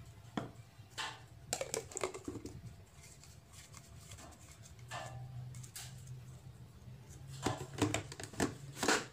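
Plastic clicks and knocks of a blender jar being handled: the blade base is screwed onto the jar of spice paste ingredients and the jar is set onto the motor base, with a cluster of knocks near the end as it is seated.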